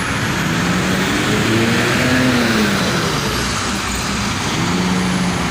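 Diesel intercity bus pulling away and accelerating, its engine pitch rising and falling twice, over steady road and tyre noise.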